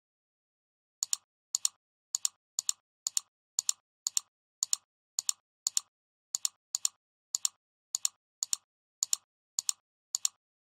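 A run of short, sharp clicks, about two a second with an occasional quick double, starting about a second in.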